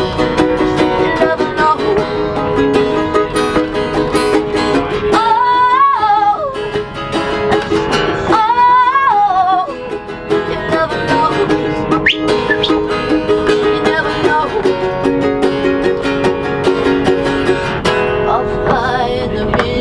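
Ukulele and steel-string acoustic guitar strummed together, accompanying a lead singer in a live acoustic song. The voice twice swells to a high, held note with vibrato about halfway through.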